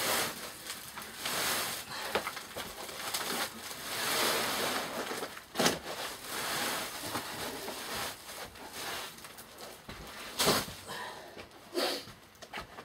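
Heavy sacks being shifted and lifted by hand: rustling and scraping of sack cloth, with a few sharp knocks, the loudest about five and a half and ten and a half seconds in.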